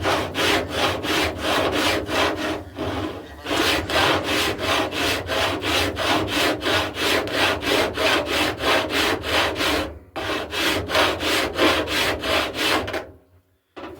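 Hand file rasping back and forth across welded steel on a car door edge, in quick regular strokes of about three a second. The strokes pause briefly twice and stop shortly before the end.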